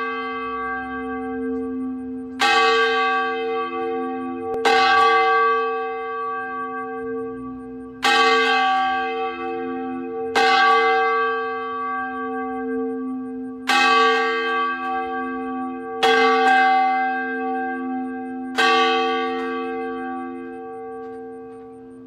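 A single church bell tolling slowly: seven strokes about two to three seconds apart. Each stroke's ringing hum carries over into the next and dies away near the end.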